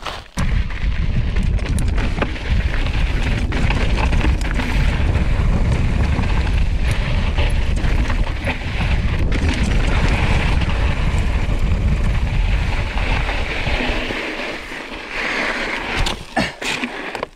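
Mountain bike riding down a rocky, gravelly dirt trail: tyres crunching over loose dirt and stones, with a heavy rumble of riding noise and wind on the handlebar camera's microphone. The rumble dies away about fourteen seconds in as the bike slows, and a few sharp clicks and knocks come near the end.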